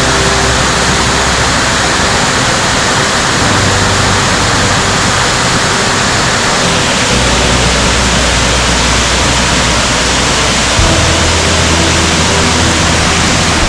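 A powerful waterfall roaring: a loud, steady rush of falling water.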